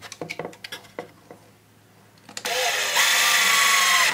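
Cordless drill driving a screw through a hardwood strip into plywood: a few light handling clicks, then about two seconds in the motor whines up in pitch, runs steadily under load and stops suddenly near the end.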